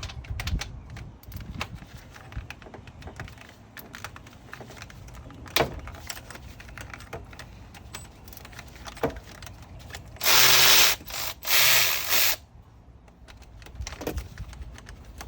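Tool work on a car starter's 14 mm mounting bolts: scattered ratchet clicks and metal taps, then two loud power-tool bursts of about a second each near the end.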